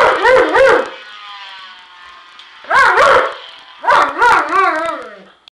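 German shepherd howling and barking at a cell phone ringtone, in three loud bouts of wavering, yowling calls: at the start, about three seconds in, and about four seconds in. A ringtone plays faintly between the bouts.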